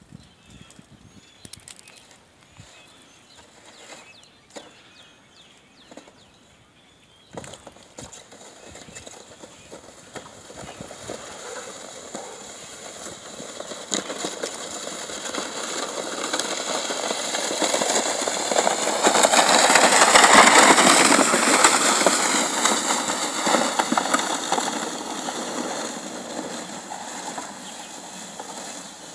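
A plastic sled sliding down a snow-covered street: a scraping hiss that grows louder as it comes near, is loudest as it passes about two-thirds of the way through, then fades as it moves away. A few faint clicks come before the slide begins.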